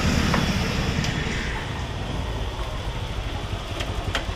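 Motor vehicle running on a road: a steady low engine and road rumble that slowly grows quieter, with a few faint clicks.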